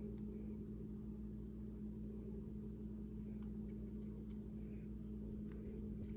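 Steady low hum with a few faint small ticks, as a driver bit turns the optic's mounting screws into the pistol slide.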